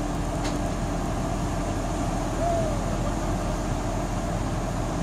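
Steady outdoor road-traffic noise with a low rumble. A faint click comes about half a second in, and a short tone that rises slightly then falls comes about two and a half seconds in.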